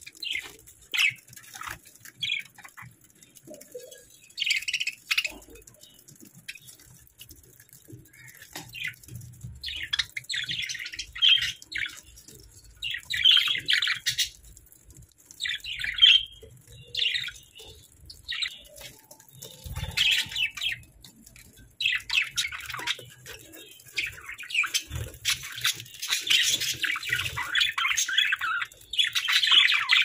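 A flock of budgerigars chirping and chattering in short, irregular bursts, the chatter growing busier and almost continuous in the last third.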